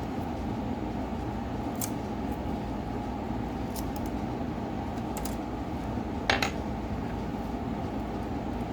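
A few small, sharp clicks of tools and phone parts being handled, the loudest about six seconds in, over a steady low hum.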